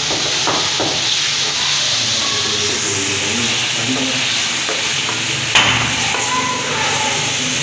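Chicken pieces sizzling in hot oil in an aluminium karahi while being stirred with a wooden spoon, a steady frying hiss. A single sharp knock stands out about five and a half seconds in.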